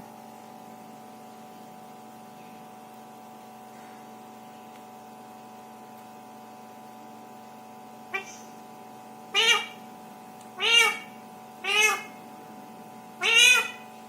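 Pet parrot giving four meow-like calls, each arching up and down in pitch, about a second apart, starting about nine seconds in, over a steady electrical hum.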